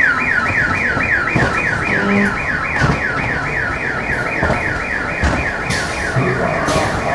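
A warbling electronic siren, sweeping rapidly up and down in pitch about four times a second, sounds as a ghost-train scare effect. Under it runs the rumble and clatter of the ride car on its track.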